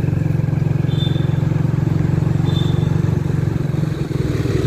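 Engine of a motor scooter or motorcycle running steadily under way, with road and wind noise on the microphone. Two brief high-pitched chirps, about a second in and again about two and a half seconds in.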